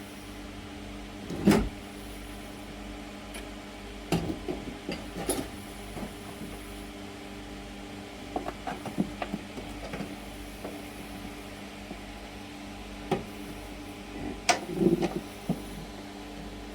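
Steady hum of small electric fans running, with scattered knocks and clicks of tools and parts being handled during battery wiring work.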